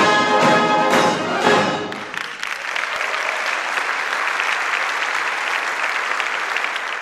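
Salvation Army brass band (cornets, horns, euphoniums and tubas) playing the closing chords of a piece; about two seconds in the music stops and steady applause takes over.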